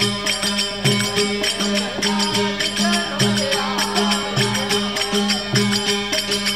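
Instrumental interlude of a Rajasthani desi veena bhajan. A steady drone runs under a melody line, with a low hand-drum stroke about once a second and a continuous jingling rattle of small percussion.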